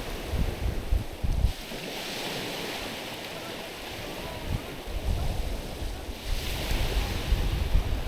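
Small waves washing in over a stony beach, the hiss of the water swelling twice, with wind buffeting the microphone as a low rumble.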